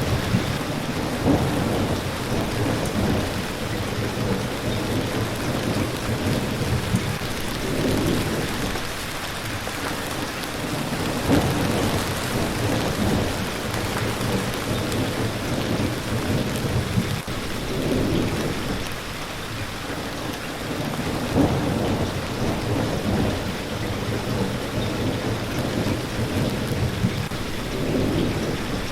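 Steady rain falling, with low rumbles of thunder swelling and fading every few seconds.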